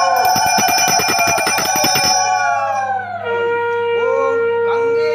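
Conch shells (shankha) blown in long held notes: the first with a slightly arching pitch, with a puja hand bell rung rapidly over it for about two seconds, then a lower, steadier conch note starting about three seconds in.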